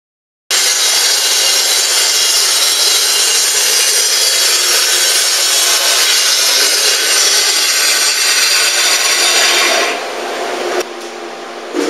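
Vertical panel saw cutting through a sheet: loud, steady cutting noise that starts about half a second in and drops away about ten seconds in.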